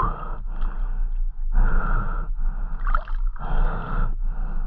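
A spearfisher's heavy, quick breathing in and out, about one breath sound a second, as he catches his breath.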